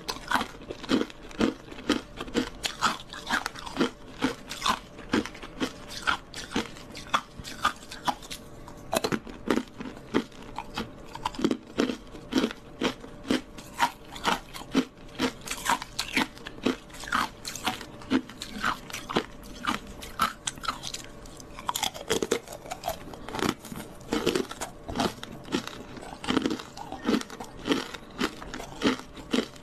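Teeth crunching and chewing frozen green-tea (matcha) ice pieces, bite after bite: a steady run of sharp cracks, several a second.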